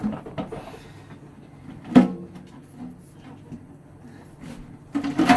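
Knocks and bumps of a stainless steel double sink being pushed down and worked loose from the countertop: one sharp knock about two seconds in and a cluster of knocks near the end.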